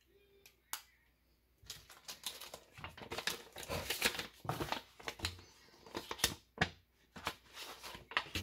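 A small clear plastic bag and a paper envelope being handled: irregular crinkling and rustling with sharp clicks, starting about a second and a half in after a single click.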